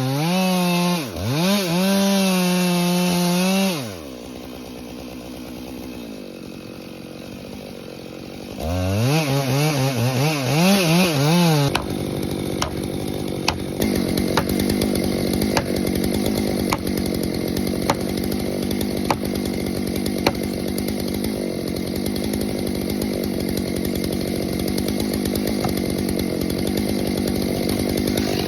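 Two-stroke Stihl chainsaw revving hard for a few seconds and dropping back to a quieter idle, then revving again with a wavering pitch. From about twelve seconds in it gives way to a steady rasping run with scattered sharp cracks.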